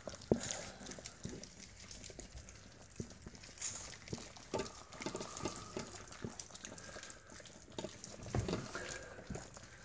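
Labrador puppies lapping and slurping wet gruel of ground kibble and warm water from stainless steel bowls: quiet, irregular wet smacks and small clicks, with one sharper click near the start.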